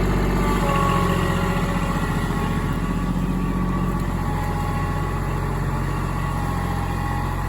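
Kubota L2501 tractor's three-cylinder diesel engine running steadily.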